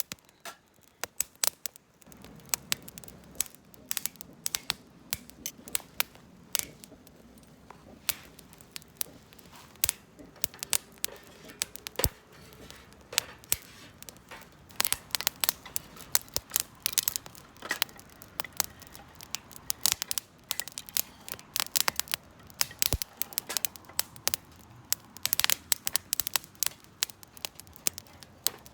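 Wood fire crackling in a steel fire pit, with irregular sharp pops and snaps of uneven loudness, several a second, over a faint low hiss.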